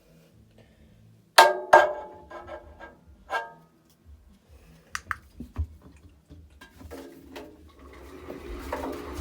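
Washing machine being handled: two loud knocks with a short ringing tone, a run of lighter knocks and clicks, then a steady hiss building near the end.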